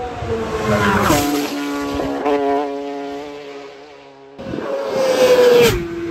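Racing motorcycles passing flat out at close range. A high engine note drops in pitch as the first bike goes by about a second in, then fades. A second bike cuts in abruptly past the middle and drops in pitch the same way as it passes near the end.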